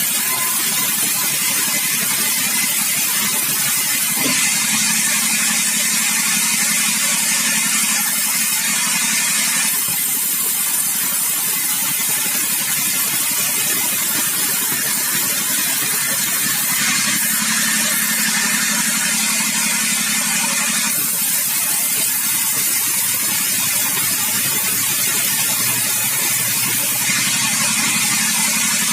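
Sawmill machinery running and sawing bengkirai hardwood, a loud, steady mechanical noise. The character of the noise changes about ten seconds in and again about twenty-one seconds in.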